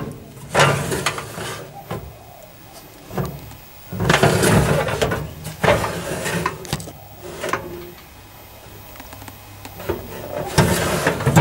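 Filing-cabinet drawers sliding open and shut, three sliding rushes with clicks and knocks between them.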